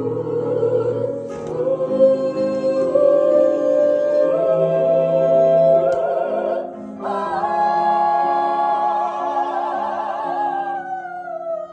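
Solo soprano singing long, held notes with vibrato in an operatic style, climbing step by step, over sustained accompaniment. After a short break about seven seconds in, a new high note is held and then slides downward at the end.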